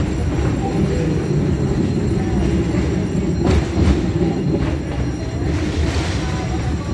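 Passenger train running, heard from its open carriage platform: a steady low rumble of the wheels on the rails, with a few sharper knocks about halfway through.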